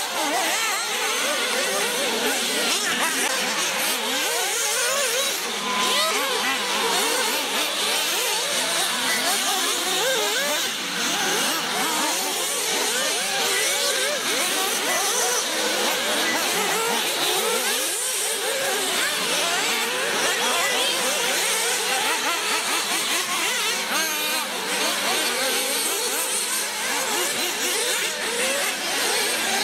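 Several nitro-powered off-road RC buggies racing, their small engines revving up and down in overlapping high whines.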